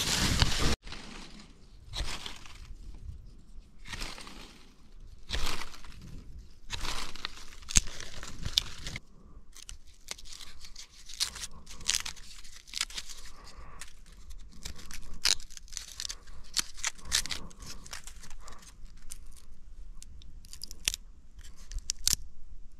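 A stone flake cutting and scraping a green stick, then the wood splitting and tearing apart along its fibres, in irregular strokes.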